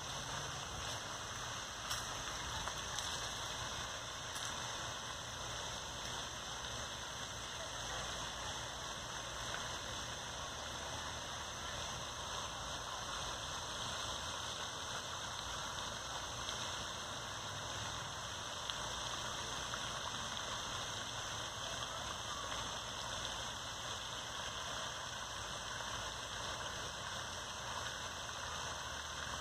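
Steady, even splashing hiss of a pond's spray fountain, water falling back onto the pond surface.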